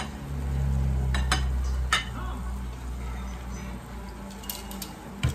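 Utensils and dishes clinking a few times at a meal table, over a steady low hum.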